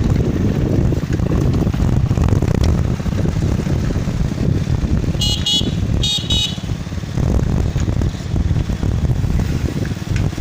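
Steady low rumble of wind and riding noise on the microphone, with two short high-pitched horn toots a little over five and six seconds in.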